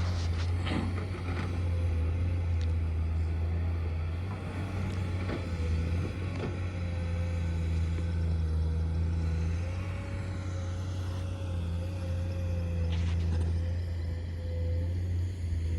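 Diesel engine of excavation machinery running steadily with a low drone, a steady whining tone above it and a few brief knocks.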